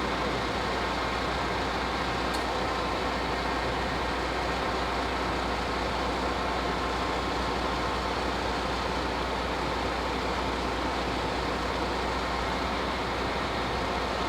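Steady vehicle noise: an even hiss with a low hum, holding one level with no rise or fall.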